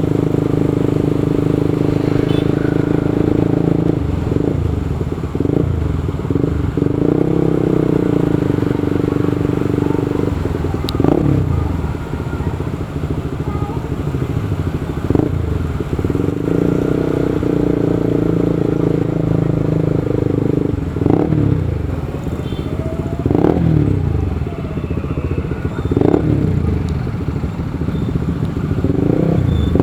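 Motorcycle being ridden: its engine drones steadily, and in the second half the revs rise and fall several times.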